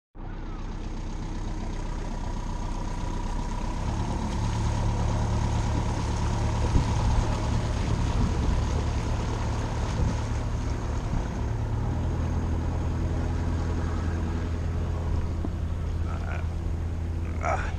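A river cruiser's inboard engine running steadily under way, a low drone whose note shifts about four seconds in and again about twelve seconds in.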